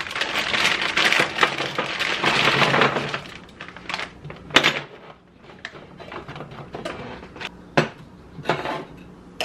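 Frozen tater tots poured from a crinkly plastic bag and rattling onto a baking sheet for about three seconds, followed by a few separate clanks of cookware as a skillet is set on a glass-top stove.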